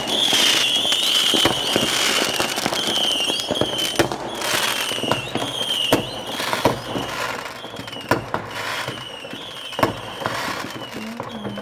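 Fireworks: rockets and firecrackers banging in quick succession, some followed by crackling bursts. A high, wavering whistle keeps coming back about once a second.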